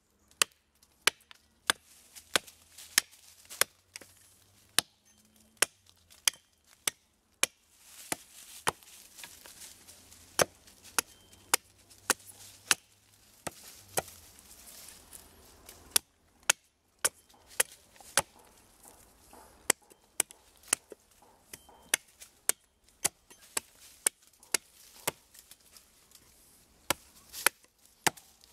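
Hatchet chopping into a wooden stick held against a tree stump: repeated sharp chops, mostly one to two a second with a few short pauses, as the end of the stick is cut to a point and its edges rounded.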